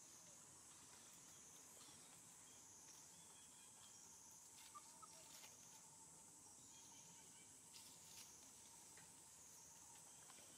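Near silence, with a faint, high insect buzz that swells and dips about every second and a half, and a few faint ticks.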